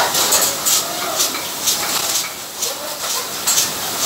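Automatic bottle-capping machine running: steady mechanical clatter broken by short hissing bursts a few times a second as the capping heads work.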